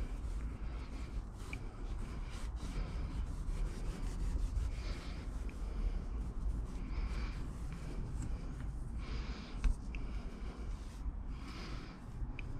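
Four-way stretch carpet rubbing and dragging over the edge of a plywood panel as it is pulled and stretched around it, in several separate strokes, over a steady low rumble, with one sharp click near the end.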